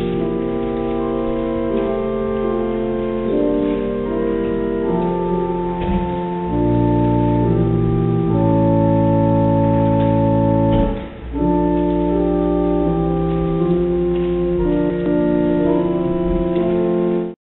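Organ playing slow, sustained chords, with a short break between phrases about eleven seconds in.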